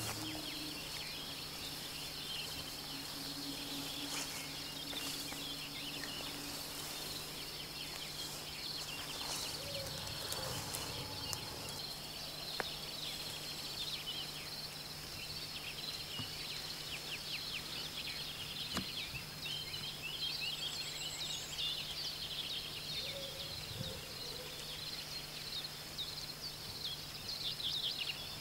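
Faint evening meadow ambience: a steady high chirring chorus of crickets, with a low steady hum underneath.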